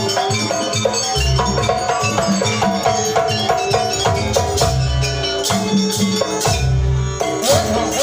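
Live Javanese jaranan ensemble music: deep hand-drum strokes under a melody of quick stepping notes, with sharp percussion hits keeping a steady rhythm.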